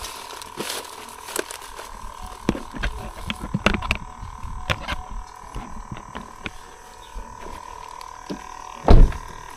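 Scattered knocks and clicks of fishing gear being handled and picked up, with one loud bump about nine seconds in, over a steady high-pitched hum.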